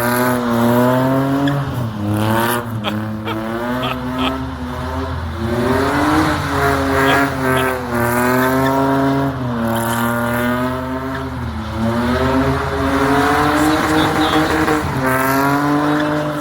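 A car's engine doing a burnout, revved hard again and again so that its pitch climbs and falls roughly every two seconds, with the tyres spinning on the pavement.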